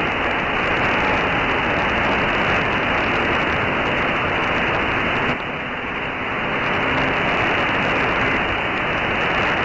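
Loud, even static hiss from a software-defined radio receiving the 11-meter CB band in AM mode at 27.285 MHz, with no station talking on the channel. The noise stops sharply above about 3 kHz at the receiver's audio filter, and its texture shifts slightly about five seconds in.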